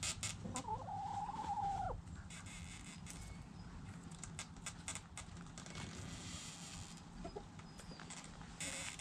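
Chickens scratching and pecking in loose dirt, a scatter of small clicks and scuffs. One chicken gives a single long, level call about half a second in that drops away at its end, and there is a short call near the end.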